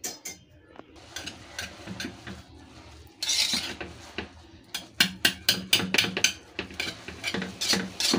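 Metal spoon stirring and mashing soft, well-cooked rice in an aluminium pressure-cooker pot, scraping and knocking against the pot. About five seconds in, the strokes turn into a quick run of sharp clinks, several a second.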